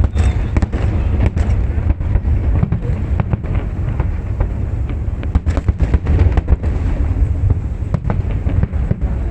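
Fireworks display going off: a continuous low rumble of shell bursts with many sharp bangs and crackles in quick succession.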